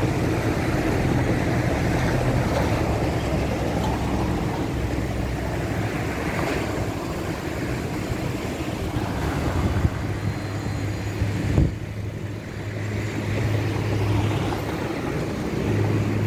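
Road traffic on a city avenue: a steady rumble of passing cars, with two sharp knocks about ten and eleven and a half seconds in.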